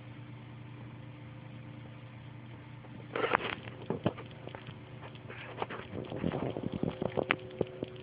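A pet rabbit making quick clicking, crackling noises while being petted, starting about three seconds in and coming in irregular clusters over a steady low hum.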